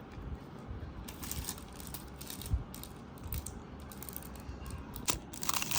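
Small plastic kit items and their packaging being handled: irregular light clicks and rustles, with a sharper click about five seconds in.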